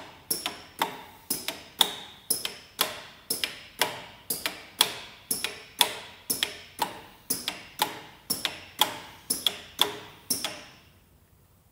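Slide gates of an IMA Swiftpack tablet counter snapping across one after another in a slide-sequence test: a steady run of sharp metallic clacks, about two a second, that stops near the end.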